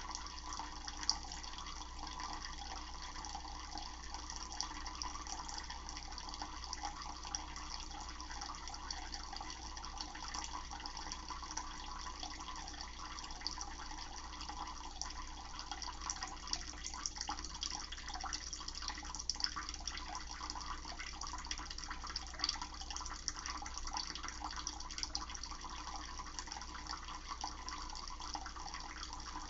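Tap water running steadily into a bowl set in a sink.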